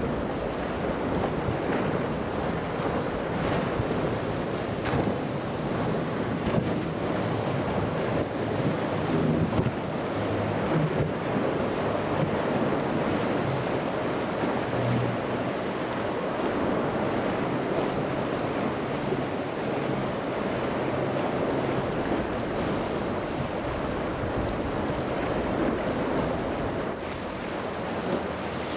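Wind buffeting the microphone over breaking waves, with a low, steady drone of boat engines underneath.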